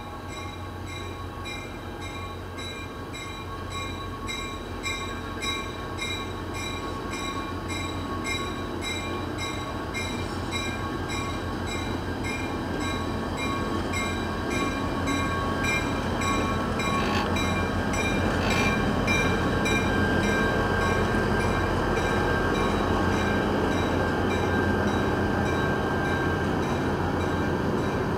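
Passenger train with its locomotive rolling past on the adjacent track, the rumble of engine and coaches growing steadily louder as it draws level. A steady low drone runs underneath, and a regular high ringing sounds about twice a second throughout.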